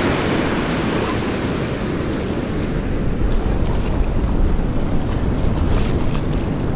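Ocean surf washing up and around on a sandy beach, with wind rumbling on the microphone that grows stronger about halfway through.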